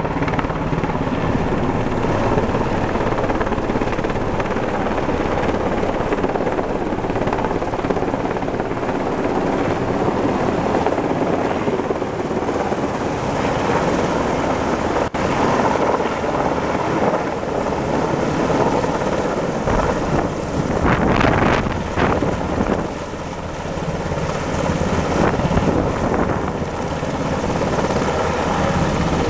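UH-60 Black Hawk helicopter's rotor and twin turboshaft engines running loud and steady as it hovers low over the river dipping a water bucket on a long line, then lifts away.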